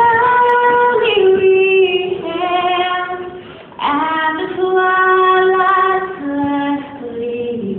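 The national anthem sung by a single voice: long held notes with vibrato, in two phrases, the second beginning about four seconds in.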